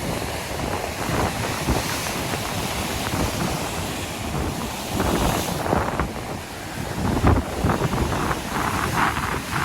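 Wind buffeting the microphone over the wash of a heavy sea swell surging against the rocks, rising and falling in gusts.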